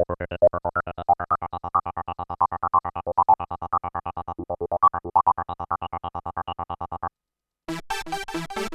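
Modor NF-1 virtual analog synthesizer playing a fast, even sequence of short plucked notes, about eight a second, that stops about seven seconds in. After a short silence a brighter, noisier patch with percussive hits begins near the end.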